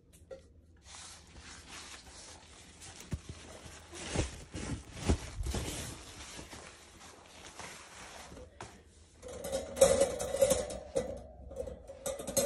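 Rustling of a disposable absorbent pet pad being unfolded and spread on a tiled floor, with a couple of dull thumps. Near the end comes clattering and ringing from a metal wire cage panel being handled.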